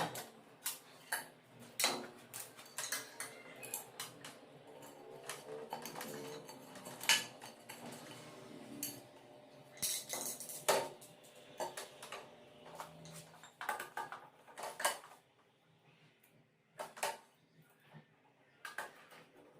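Scattered clinks and knocks of hard objects being handled, in irregular bunches, quieter for a few seconds near the end.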